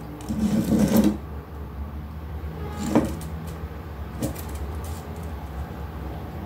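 Handling noise from fishing line and terminal tackle being pulled taut and held: a rustle in the first second, then a sharp click about three seconds in and a lighter one just after four seconds, over a steady low hum.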